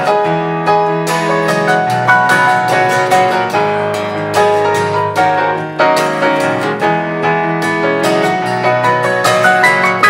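Instrumental break of a ballad: piano-voiced Yamaha electronic keyboard playing chords and a melody in a steady rhythm, with acoustic guitar accompaniment.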